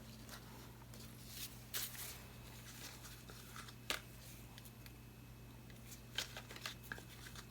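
Faint scattered taps and rustles of hands handling painting supplies on a tabletop, a few seconds apart, over a steady low hum.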